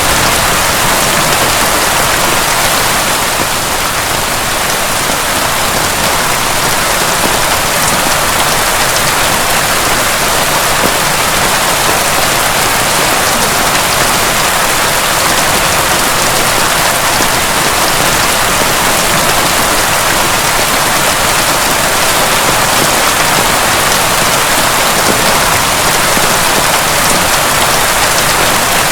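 Heavy rain falling steadily: a loud, even hiss of countless drops with no break or change.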